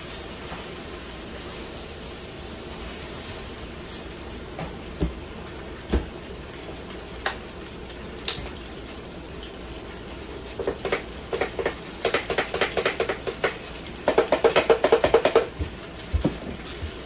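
Pasta frying in butter in a pan, sizzling steadily, with a few single knocks of tongs against the pan. From about ten seconds in, a pepper grinder is twisted over the pan, giving two runs of quick, even grinding clicks, the second one louder.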